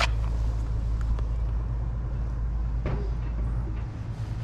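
Low rumble of wind buffeting the microphone, easing briefly near the end.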